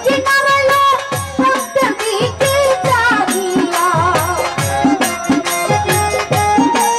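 Live Bangladeshi jari folk music: a gliding melody over a steady drum beat of about two strokes a second, with rattling percussion.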